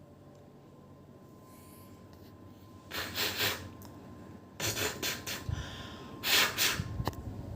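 A person breathing heavily close by: three loud breaths a second or so apart, with a short click near the end.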